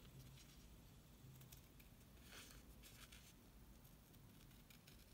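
Near silence, with a few faint snips of scissors cutting through a sheet of faux leather, the clearest a little over two and about three seconds in.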